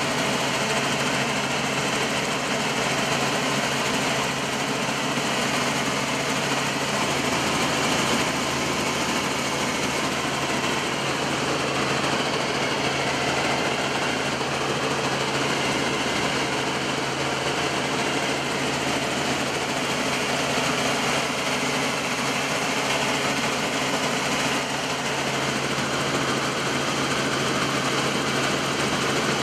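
Helicopter in flight, heard from inside the cabin: a steady, even drone of engine and rotor with a constant low hum underneath.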